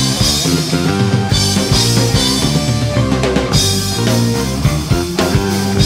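Live rock band playing an instrumental passage, the drum kit to the fore with bass drum and snare hits, over electric guitars.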